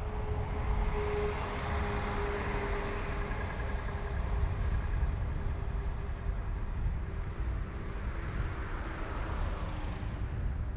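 Road traffic passing a moving bicycle: a bus goes by in the first few seconds, and another vehicle swells and fades near the end, over a constant low rumble of wind and tyres.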